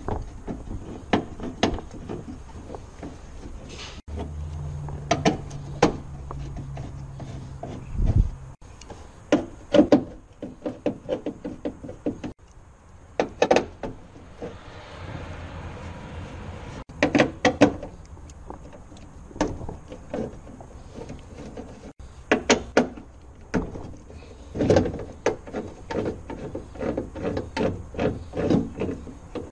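Ratchet wrench with a 10 mm socket clicking in quick even runs as bolts are worked on a car door's inner steel panel, with scattered knocks and taps of tools and hands against the door.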